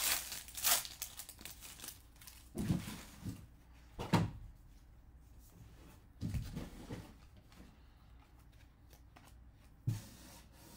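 Baseball card pack wrapper crinkling near the start, then trading cards handled and flipped through in a stack, with a few soft rustles and knocks.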